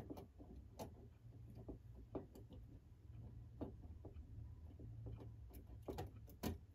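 Faint, irregular small clicks and taps of clock movement parts being handled and fitted together.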